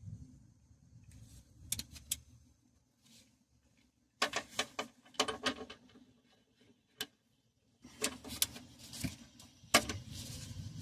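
A run of sharp clicks and light rattles from things being handled, bunched in two busy stretches, over a faint low rumble, with a short near-silent gap in between.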